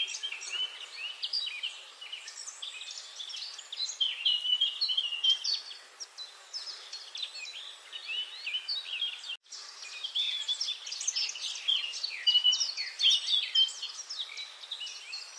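Many small birds chirping at once: a dense, overlapping chorus of short high chirps and twitters. The sound cuts out for an instant about nine seconds in.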